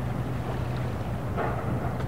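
Harbour soundscape: a boat engine drones steadily under lapping water, with a brief louder rush of water about one and a half seconds in.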